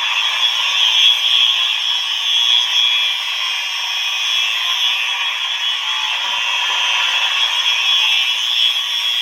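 Fire alarm horn sounding continuously: a loud, steady, harsh buzzing tone.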